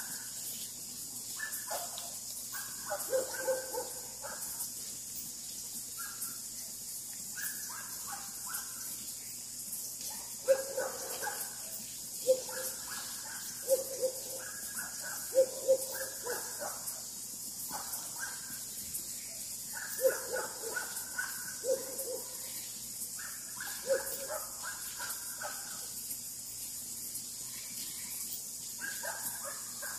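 Countryside dusk ambience: a steady, high-pitched chorus of night animals, over short calls repeated in clusters every second or two, with a few sharp clicks.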